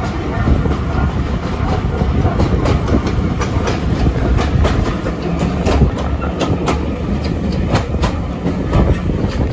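Heritage railway carriage running along the track, heard from an open window: a steady low rumble of wheels on rail with frequent sharp clicks and clatter, growing busier in the second half.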